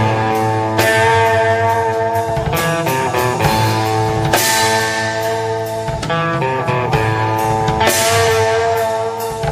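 Live rock band playing: sustained electric guitar notes over bass and drums, with cymbal crashes about four and a half and eight seconds in.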